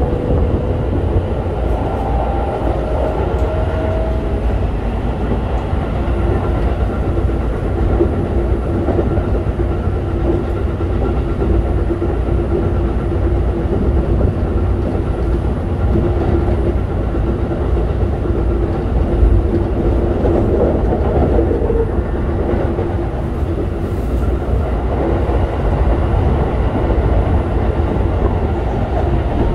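Keikyu 1000-series electric train (set 1033, Siemens GTO-VVVF inverter) running, heard from inside the car. There is a steady rumble of wheels on the rails, with a thin motor whine that rises slowly in pitch over the first few seconds, then settles into a steady hum.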